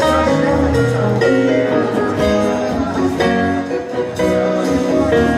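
Live rock band playing, with electric and acoustic guitars over a drum kit.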